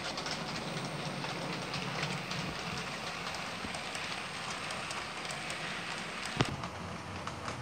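Model diesel freight train running past: a steady hissing rush of small wheels on the track with a fine crackle of ticks and a low steady hum, and one sharp click about six seconds in.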